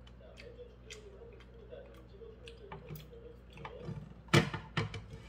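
Metal chopsticks clicking lightly against a nonstick frying pan and against each other while picking up a pan-fried dumpling, with a louder short thump about four seconds in and a smaller one just after. A TV plays faintly underneath.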